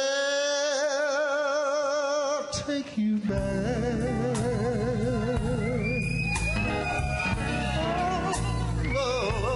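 Background song: a singer holds a long note with wide vibrato, which breaks off about two and a half seconds in. The band then comes back in with a heavy bass line under more sung phrases with vibrato.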